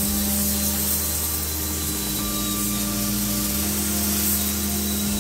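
Gravity-feed air spray gun hissing steadily as it sprays gel coat, with a steady low hum underneath.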